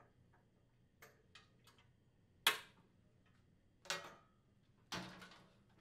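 Washer main top's metal lid spring and hinge bar being handled and hooked into place. There are a few faint ticks early on, a sharper click about two and a half seconds in, another click near four seconds, and a short rattle near the end.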